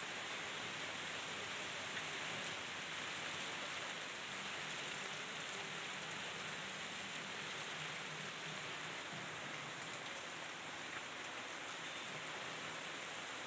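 Heavy rain pouring down onto a flooded street, a steady dense hiss.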